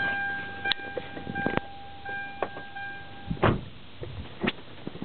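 A car's electronic warning tone sounds steadily, breaks off briefly about a second and a half in, resumes, then stops a little after three seconds in. Scattered knocks and clunks come through it, the loudest about three and a half seconds in.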